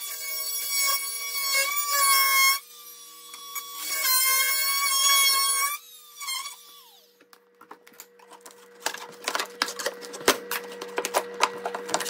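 Corded oscillating multi-tool cutting through a baseboard: a high whine in two runs with a short dip between, then the motor winds down with falling pitch about six seconds in. After that come scattered clicks and taps as the cut baseboard is worked loose.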